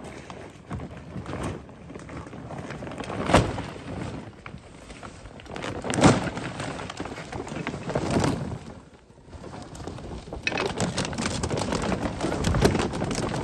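Heavy canvas tarpaulin being unfolded and dragged over dirt ground, rustling, with three sharp thumps spread through the first eight seconds. About ten seconds in the rustling grows louder and steadier as the tarp is pulled out and spread.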